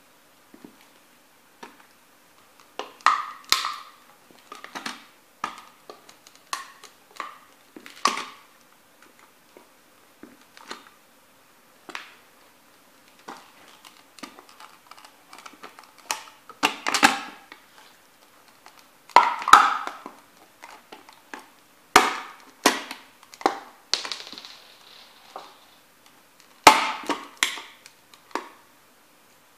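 Sneakers stomping on a small toy truck with a metal cab, crushing it against a board: a long run of irregular sharp cracks, crunches and knocks, with the hardest stomps in the second half. There is one short scraping rush about three-quarters of the way through.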